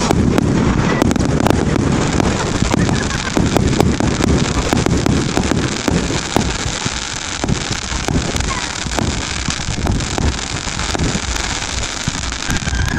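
1.3G compound firework cake firing a rapid, continuous barrage of shots and crackling bursts.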